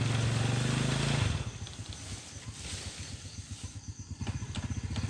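Small motorcycle engine running under throttle. About a second in it drops back to a slow, uneven putter of single firing strokes, then picks up again near the end as the bike is ridden over rough ground.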